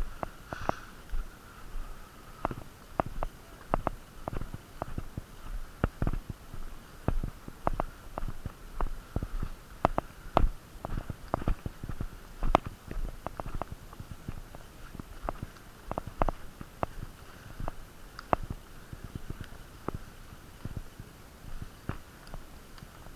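Irregular clicks, knocks and rustles from a player moving on foot through the field, with footsteps and gear handling rubbing on a body-worn camera over a low muffled rumble.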